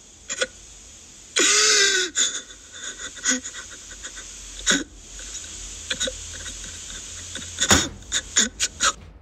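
A staged fight: a string of about ten sharp slaps and thumps, several in quick succession near the end, with one loud cry from a man about one and a half seconds in.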